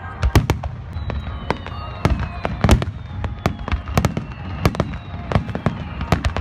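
Fireworks going off in rapid, irregular succession, several sharp bangs a second over a low rumble, with a faint falling whistle between the bangs.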